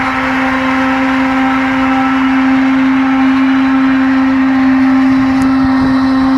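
KAMAZ 6x6 truck's V8 diesel engine running at steady revs, a constant loud drone, as the truck drives through slush and meltwater.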